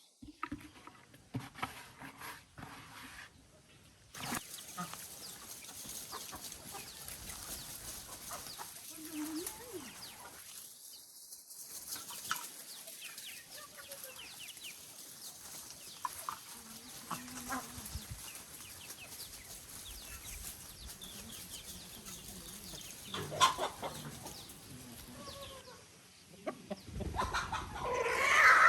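Chickens clucking and calling, with many short scattered calls and a louder burst of calls near the end.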